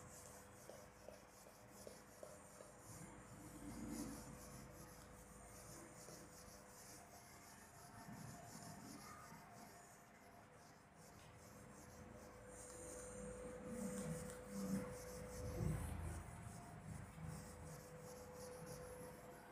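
Faint rubbing of a duster wiping writing off a whiteboard, in irregular strokes that grow more frequent and a little louder in the last third. A faint steady hum runs underneath.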